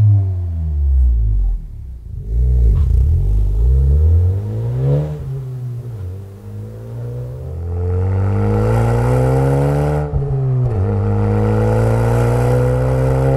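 2017+ Honda Civic Si sedan's 1.5-litre turbocharged four-cylinder through a Remark stainless cat-back exhaust with dual tips, revving up and easing off. The engine note falls and climbs in pitch several times, drops briefly about ten seconds in, then holds a steady, slowly rising note.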